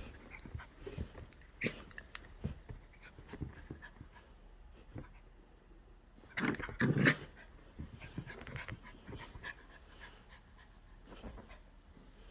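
Pet poodle breathing and shuffling, with small clicking movement sounds and two louder short sounds close together about six and a half seconds in.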